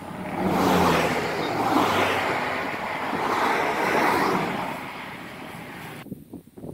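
Highway traffic passing close by: several vehicles rush past one after another in rising and falling swells, then the sound drops off suddenly near the end.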